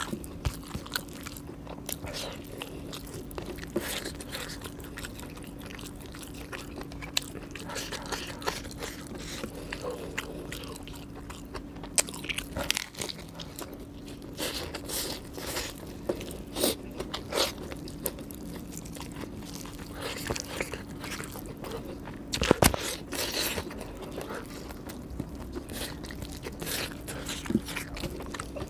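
Close-miked eating: mouth-full chewing and crunching of fried chicken, rice and raw salad leaves eaten by hand, with irregular wet clicks and crackles. The loudest crunch comes about three-quarters of the way through.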